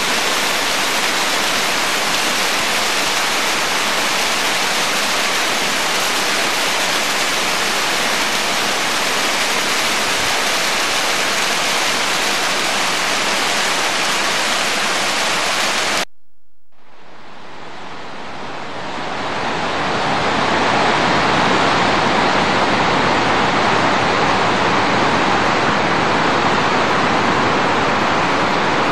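Steady rushing of a mountain stream and waterfall tumbling over rocks. About sixteen seconds in it cuts off abruptly; the rushing returns a moment later, duller, and swells back up over a few seconds.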